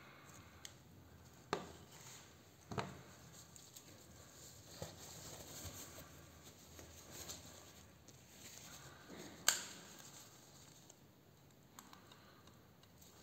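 Handling sounds as a wrist blood pressure monitor is set down and its batteries are unwrapped: three sharp knocks, the loudest about three-quarters through, with faint crinkling and tearing of plastic packaging between them.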